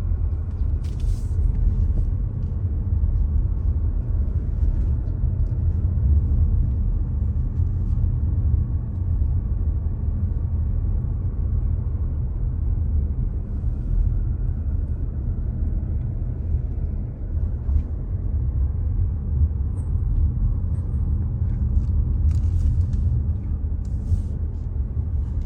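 Steady low rumble of a car driving: tyre and engine noise, with a few faint ticks or rattles about a second in and again near the end.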